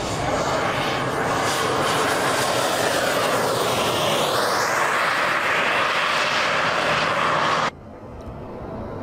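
Yak-130 jet making a low pass along the runway with its gear down: a loud, steady jet roar, with a sweeping hiss as it goes by about four seconds in. Near the end the roar cuts off abruptly to a much quieter sound.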